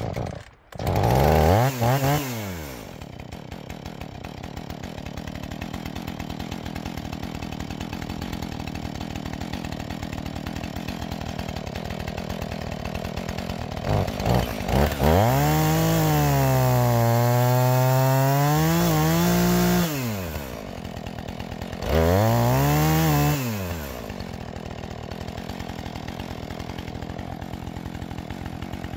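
Husqvarna 445 two-stroke chainsaw starting about a second in, revving up and back down, then idling. In the middle it is revved high for about five seconds, its pitch sagging and recovering, drops back to idle, and is revved once more briefly before idling again.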